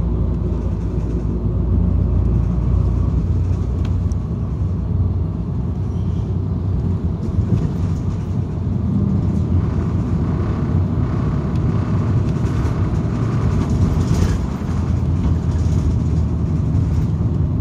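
City bus heard from inside the passenger cabin while driving: a steady low engine and road rumble with some tyre and rattle noise above it.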